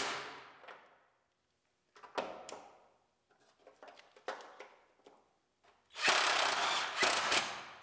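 A cordless power tool runs in the bolts that hold relays to a car's inner fender apron, in two short spells: the first fades out within the first second, and the second starts about six seconds in and lasts about a second and a half. A few light clicks and knocks of parts and tools come in between.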